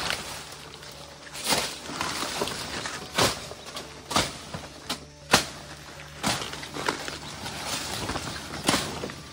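Footsteps on forest ground, one sharp step about every second, with a rustling hiss between the steps.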